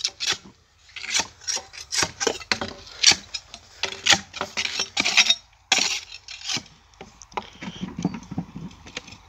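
Hand tool scraping and knocking at a water fountain's structure to dismantle it: repeated uneven strokes, about two or three a second, with a short pause about halfway through.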